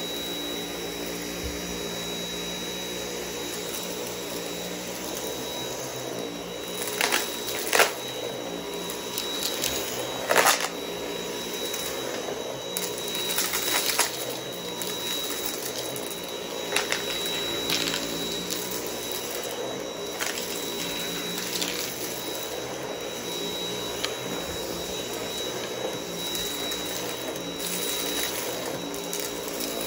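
Dyson V8 cordless stick vacuum running steadily with a thin high whine as its cleaner head is pushed over concrete and carpet. Several sharp clicks and rattles come through as bits of debris are sucked up.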